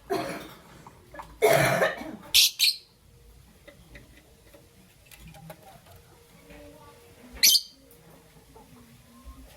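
Young peach-faced lovebird calling in harsh, raspy chirps: two loud rasping calls in the first two seconds, then a quick pair of short shrill chirps, and one more shrill chirp about seven and a half seconds in.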